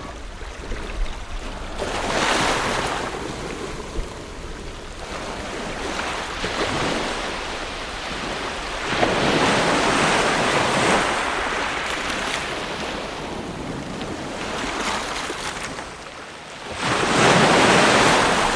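Ocean waves washing on the shore in slow swells, four surges rising and falling, the loudest near the end.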